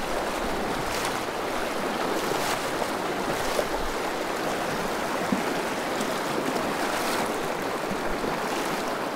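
Swift river current rushing and splashing around a person wading across it, a steady rush with a few brief splashes.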